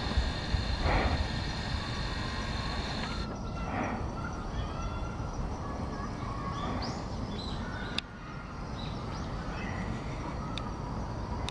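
Birds calling over a steady low rumble, with short calls and higher chirps scattered through. The background changes abruptly about three seconds in and again about eight seconds in, the second time with a sharp click.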